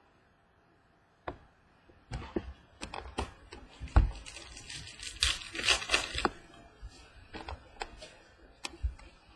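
Trading cards and a foil card pack handled on a wooden table: scattered taps and clicks as cards are set down and sorted, a sharp knock about four seconds in, and about a second of dense rustling and tearing from about five seconds in.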